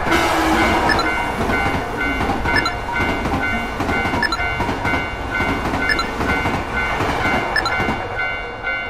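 Passing train sound effect: a steady rumble of a train running on the rails, with a wheel clack over a rail joint about every second and a half. A level-crossing warning bell rings over it.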